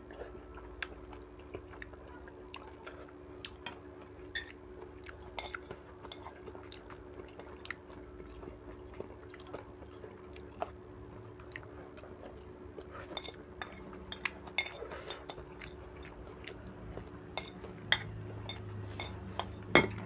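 Metal spoon clinking and tapping against a small bowl while eating noodle soup: many light taps, with two louder clinks near the end. A steady low hum runs underneath.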